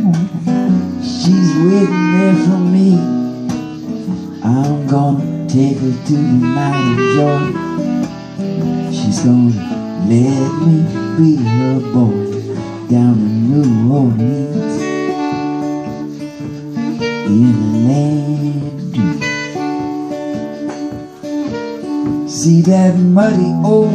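Clarinet and strummed acoustic guitar playing an instrumental break between sung verses, the clarinet carrying a wavering, bending melody over the guitar's steady chords.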